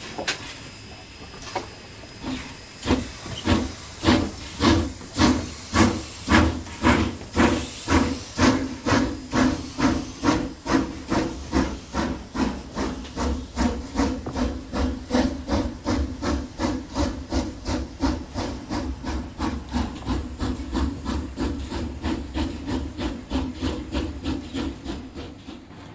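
Steam locomotive chuffing as it pulls away with a train, the exhaust beats starting slowly about two seconds in and quickening to a steady, slightly softer rhythm.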